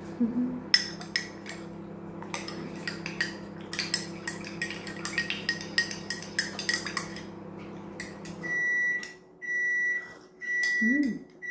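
A metal spoon clinks rapidly against a ceramic mug as coffee is stirred, over the steady hum of a running microwave oven. The hum stops about eight seconds in and the microwave beeps, a string of steady beeps about a second apart, signalling that it has finished heating.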